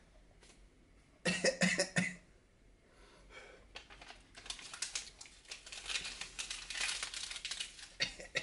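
A man coughs a few times, about a second in. Then comes a dense, crackling noise of many quick clicks that lasts about four seconds and ends with a sharper burst near the end.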